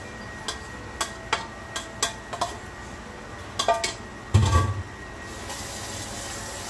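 Metal kitchen tongs clicking and clinking against a nonstick frying pan: a run of sharp, short clicks, then a heavier thud about four and a half seconds in. A steady hiss comes up near the end.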